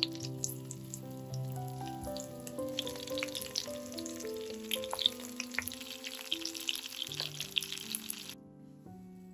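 Zucchini slices frying in hot olive oil in a pan, crackling and spitting, with soft background music. The frying stops suddenly near the end, leaving only the music.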